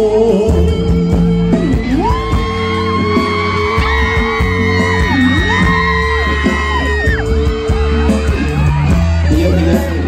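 Amplified live band playing a Thai pop song between sung lines, a long held melody line sliding up into sustained notes in its middle, with fans yelling and whooping over the music.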